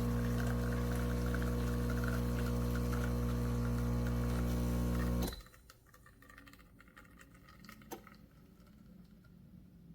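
Espresso machine's pump running with a steady hum while liquid pours, stopping abruptly about five seconds in; a single faint click follows near the end.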